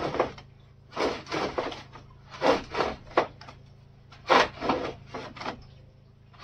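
A knife sawing and rasping through a tough, fire-dried animal hide in short, irregular strokes with brief pauses between them.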